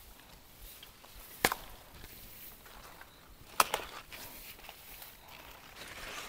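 Two sharp snaps, about a second and a half in and again two seconds later, over faint rustling: tender bharangi (Clerodendrum serratum) stalks being snapped off by hand.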